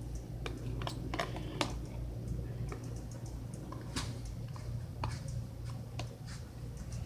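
Irregular light clicks and taps from stirring a shampoo-and-sugar slime mixture in a container, over a steady low hum.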